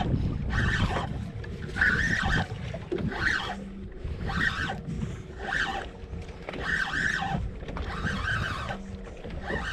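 Penn spinning reel cranked in short spurts about once a second, bringing in a hooked fish, over steady wind and water noise.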